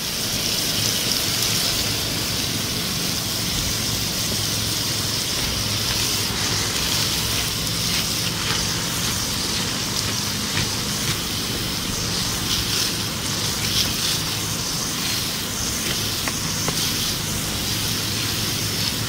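Water spraying onto a smouldering fire pit, a steady hiss with scattered faint crackles from the wet embers, over a faint low hum.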